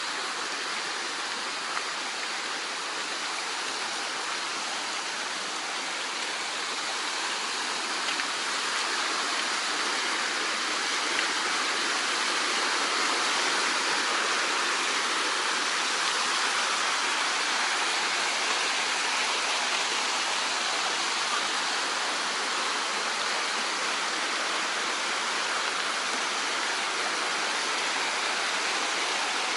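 Mountain stream rushing and splashing over rocks in a steady wash of water noise, growing louder about a third of the way in. A few faint knocks sound over it.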